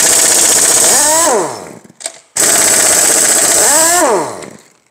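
Impact wrench hammering loose engine main bearing cap bolts in two bursts. Each burst ends as the bolt frees: the tool's pitch rises briefly, then falls away as it spins down.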